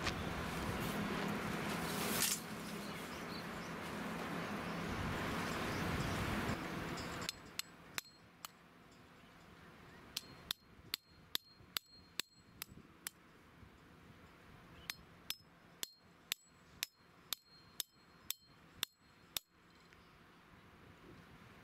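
A steady rushing noise for the first seven seconds or so. Then a hammer strikes a steel tent peg over twenty times, in two runs of about three blows a second, each blow a sharp ringing clink as the peg is driven into the ground.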